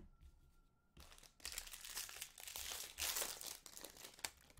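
Foil wrapper of a 2020 Bowman Draft jumbo baseball card pack being torn open and crinkled by hand. The crackling starts about a second in, is loudest around three seconds, and ends with one sharp crack.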